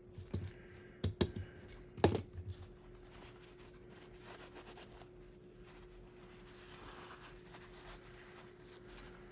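A few sharp clicks and taps of small HO slot-car chassis parts being handled during cleaning, the loudest about two seconds in, then faint handling noise over a steady hum.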